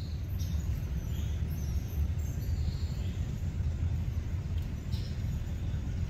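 Steady low outdoor rumble, with a few faint high bird chirps now and then.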